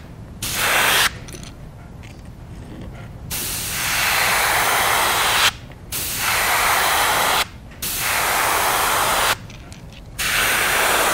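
Gravity-feed airbrush spraying paint in five separate hissing bursts, each one to two seconds long, with short pauses between them as the trigger is let off.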